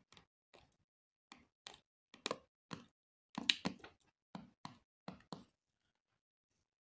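Plastic retaining clips of a Samsung Galaxy A20's housing snapping into place one after another as the phone is pressed closed: a dozen or more sharp clicks, stopping about five seconds in.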